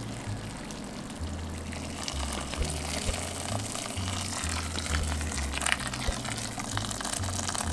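Hot water poured in a steady stream from a kettle into a pressure cooker of soaked white beans, splashing into the liquid. Background music with a changing bass line plays alongside.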